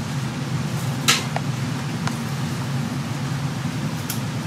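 Steady low mechanical hum, like a kitchen fan, with one sharp click about a second in and a few faint ticks later.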